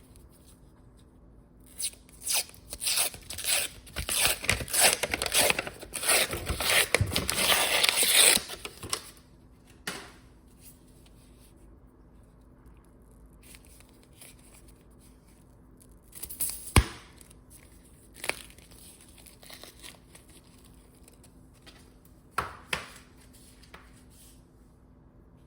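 Packaging being torn open and crinkled for about seven seconds, followed by a sharp click and a few light knocks.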